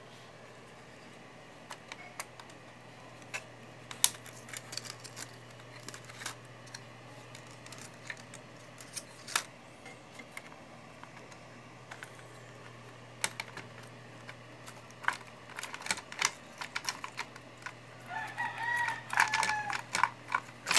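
Scattered small clicks and taps of plastic parts as a dismantled inkjet printer's ink tubes and damper are handled, over a faint steady hum. A rooster crows in the background near the end.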